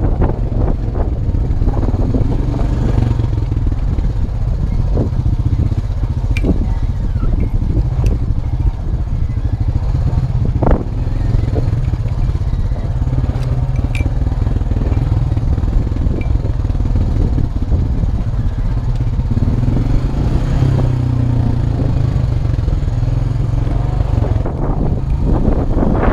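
2002 Honda Rancher 350 ATV's single-cylinder engine running steadily while riding, with a few sharp clatters and knocks from the machine on rough ground.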